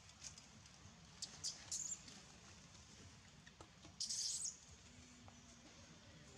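Faint, short crackles and rustles of dry leaf litter as a macaque shifts, a few quick ones between one and two seconds in and a louder half-second rustle about four seconds in.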